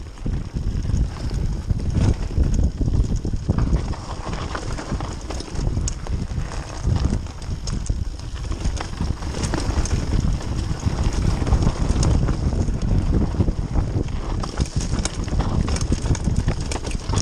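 Mountain bike rolling fast down a rough dirt trail: a continuous rumble and rattle of tyres, chain and frame, with many small knocks from bumps, and wind buffeting the camera microphone.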